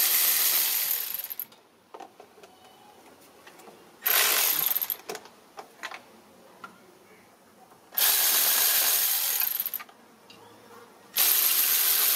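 A ratchet with a Torx 20 bit backing out intake manifold bolts. It clicks in loud bursts of one to two seconds, about every four seconds, with quiet pauses between: a burst ending about a second in, then three more.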